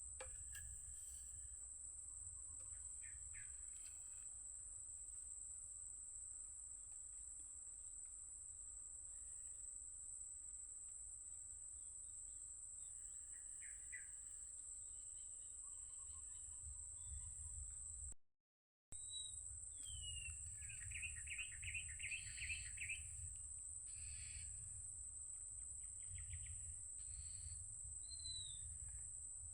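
Birds calling faintly: scattered short chirps, with one trilled call about twenty seconds in and a rising chirp near the end. A steady high-pitched drone and a low rumble run underneath, and the sound drops out briefly a little past halfway.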